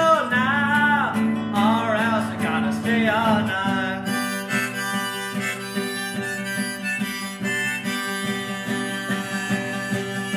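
Harmonica in a neck rack with a nylon-string classical guitar strummed underneath, playing the song's instrumental outro. The harmonica bends and wavers through its notes for the first few seconds, then holds steadier notes while the strumming goes on, gradually getting quieter.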